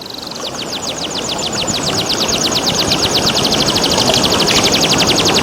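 Domestic canary singing a fast trill of short falling notes, about nine a second, over the steady rush of running water. The sound fades in, growing louder throughout.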